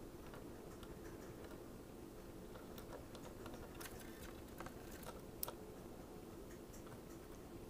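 Faint, irregular clicks and taps of American goldfinches pecking and cracking seeds on a window sill, with one sharper tap about five and a half seconds in, over a low steady hum.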